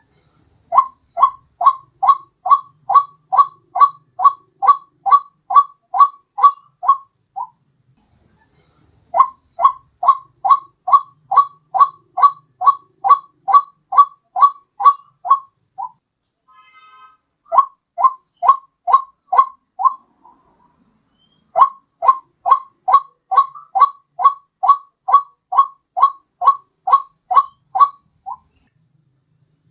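White-breasted waterhen (ruak-ruak) lure call: one note repeated about twice a second in runs of several seconds, with short pauses between the runs.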